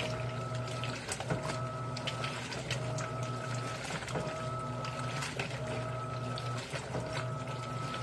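Electrolux LAI17 17 kg top-load washing machine agitating clothes in a low water level. The motor hums steadily with a whine that breaks and restarts about every 1.3 s, stroke by stroke, over sloshing and splashing water.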